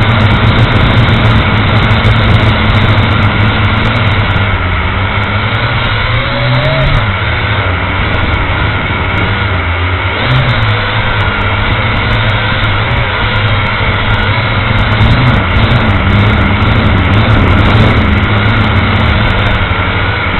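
Motors and propellers of a small remote-controlled aircraft, heard from a camera mounted on it: a loud, steady hum and whine that wavers slightly in pitch as it manoeuvres.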